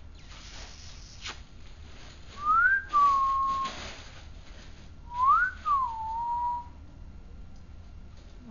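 Whistling, twice: each whistle rises quickly in pitch, then falls to a held note.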